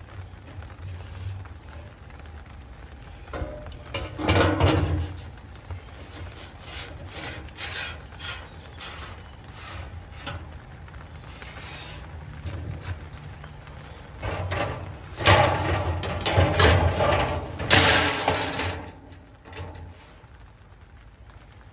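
Rubbing and scraping with many scattered clicks and knocks, as things are handled and moved about. It is loudest briefly about four seconds in and again for a few seconds from about fifteen seconds, then quietens.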